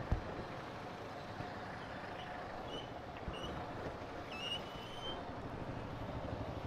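Steady city traffic noise at an intersection: motorcycle and car engines running and passing at low speed, with a few faint high chirps in the middle.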